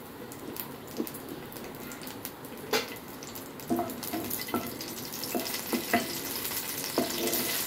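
Green chillies frying in hot oil in a nonstick pan, crackling and sizzling and getting louder toward the end. From about three seconds in, a wooden spatula knocks and scrapes against the pan as they are stirred.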